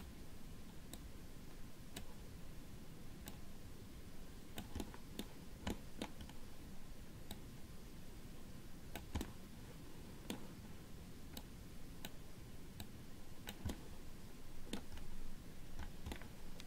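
Faint sharp clicks, roughly one a second and some in quick pairs, over a low steady room hum.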